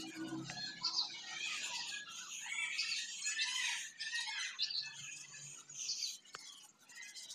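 Small birds chirping repeatedly, with short high calls coming one after another.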